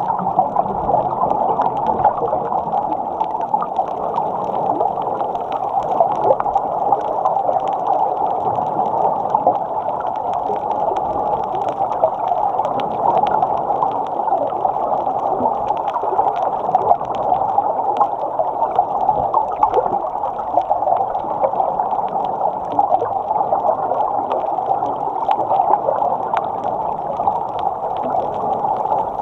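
Muffled underwater sound from a camera mounted on a snorkel: a steady crackling, gurgling wash of water and bubbles, with the snorkeler breathing through the snorkel.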